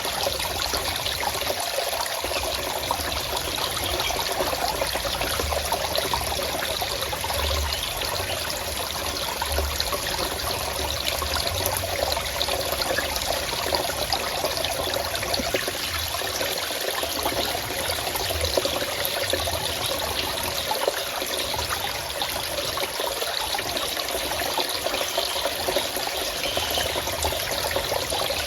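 Forest stream flowing and trickling steadily over rocks.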